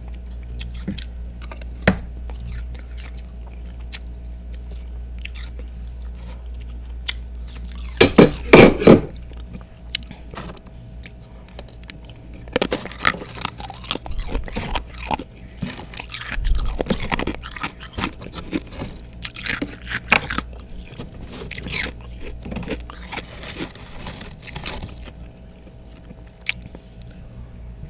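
Close-up crunching of freezer frost and thick ice chunks being bitten and chewed. A loud cluster of bites comes about eight seconds in, followed by bouts of crisp crunching.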